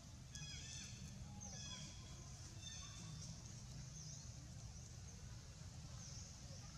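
Short, high chirping calls that fall in pitch, in several clusters in the first three seconds, over a low steady hum.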